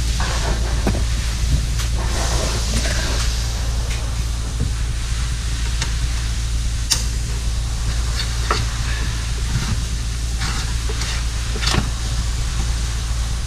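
Steady low hum and hiss of workshop background, with scattered sharp clicks and knocks from hand work on the car's rear axle, a few seconds apart.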